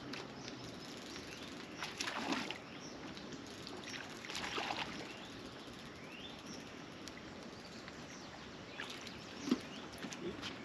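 Quiet outdoor ambience: a steady faint hiss with a few short scattered sounds, among them a brief rising bird call about six and a half seconds in and a sharp click about nine and a half seconds in.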